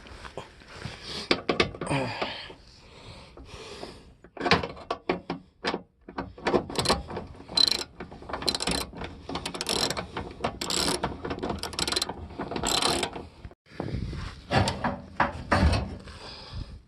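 Hand ratchet wrench clicking in a run of repeated strokes, about one a second, among short clicks and knocks of tools on metal.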